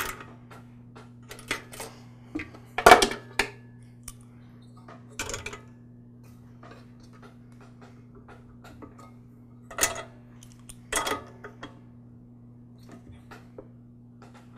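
Metal clinks and knocks of a wrench on the ignition coil mounting bolts as they are tightened, the coil's air gap set by a gapping card. The knocks come a few at a time, the loudest about three seconds in, over a steady low hum.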